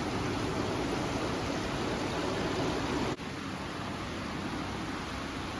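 Steady rushing noise, like running water or air handling, with a sudden brief dip about three seconds in.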